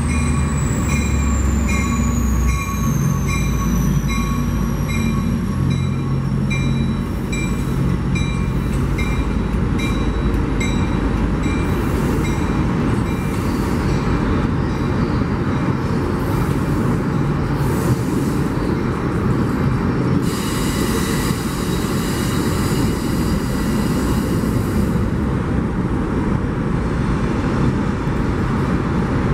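Amtrak Capitol Corridor passenger train passing close by: the diesel locomotive's engine hum and a high whine falling in pitch go by in the first seconds, then the bilevel coaches roll past with a steady rumble of wheels on rail. A bell dings at a steady pace for the first ten seconds or so, and high wheel squeal rises for a few seconds about twenty seconds in.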